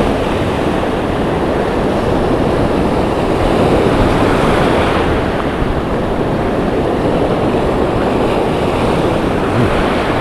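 Ocean surf breaking and washing up a sandy beach: a continuous loud rush of water, with a wave swelling and breaking about four seconds in.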